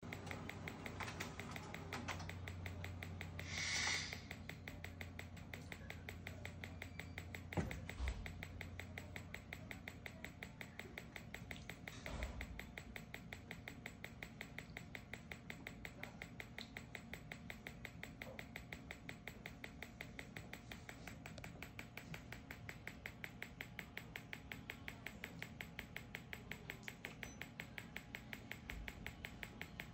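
Magnawave pulsed electromagnetic field (PEMF) therapy machine running, giving a steady, even train of fast clicks, several a second. A brief rush of noise comes about four seconds in, and a few knocks near eight and twelve seconds.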